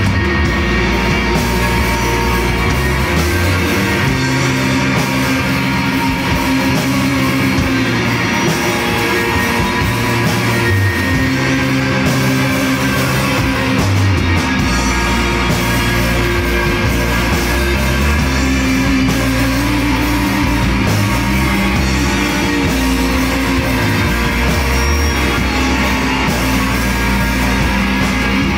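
Rock band playing live: several electric guitars over drums, with a moving bass line, in an instrumental stretch with no singing.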